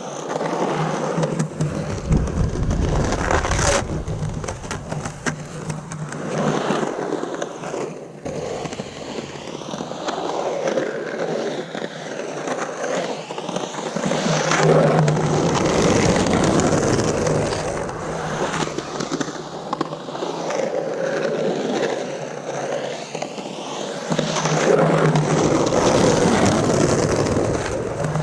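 Skateboard on Santa Cruz Slime Balls urethane wheels rolling and carving on the concrete walls of a bowl. The rolling noise swells and fades with each pass, loudest in the middle and near the end, with one sharp click about four seconds in.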